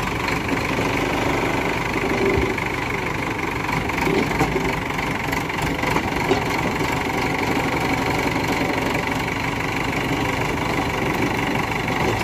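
JCB backhoe loader's diesel engine running steadily while its front loader bucket tips a load of earth into a tractor trolley. A few light knocks come between about four and six seconds in.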